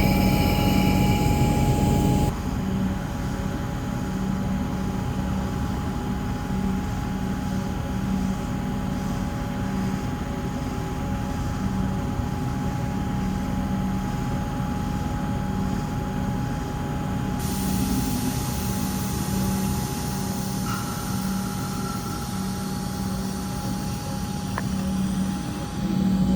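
Comeng electric suburban train running, a steady mechanical hum with a constant whine and a low pulsing rumble.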